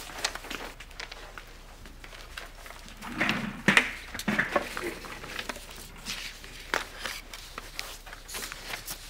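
Footsteps and office chairs being pulled out and sat in, with the loudest knocks about three to four seconds in, then light paper rustling as an envelope is handled.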